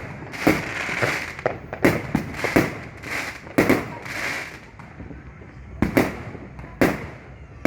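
New Year fireworks going off: a string of sharp bangs, several close together in the first few seconds with a fizzing hiss between them, then fewer and more spaced out.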